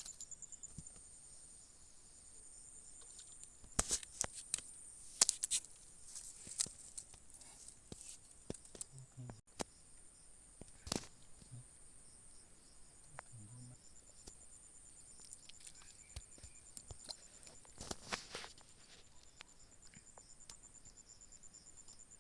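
Insects, crickets by the sound of it, chirring steadily in a high thin drone, pulsing quickly at first. Scattered sharp clicks and rustles of handling break in several times, the loudest around four to five seconds in and again near eighteen seconds.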